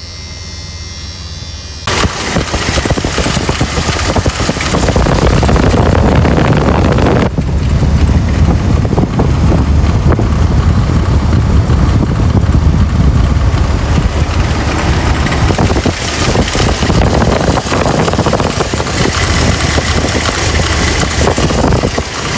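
1995 Dodge Dakota's 3.9-litre Magnum V6 running at idle, heard close at the front of the engine, with a rattling chatter from the accessory belt drive. The owner traces the chatter to a loose pulley with play in it. It gets much louder about two seconds in.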